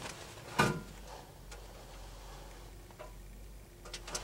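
Handling noise while measuring a piece for a floor patch: a few light scattered clicks and taps, with one sharper knock just over half a second in.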